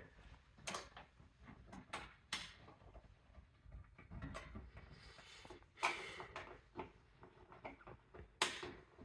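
Faint handling noises from a PC case: scattered clicks, taps and short scrapes as the side panel is seated and its thumbscrews are turned by hand, with a louder scrape about six seconds in and another near the end.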